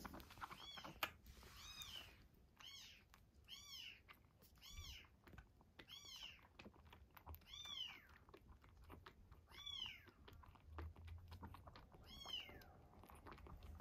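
Young kittens giving quiet, high-pitched mews, about ten in a row at roughly one a second, each rising then falling in pitch.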